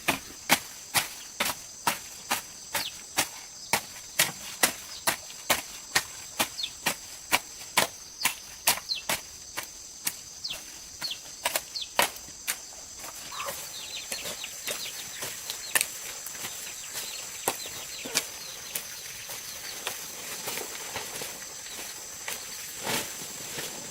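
Sharp knocks repeating about two to three times a second for roughly the first half, then giving way to lighter, scattered ticks, over a steady high-pitched insect drone.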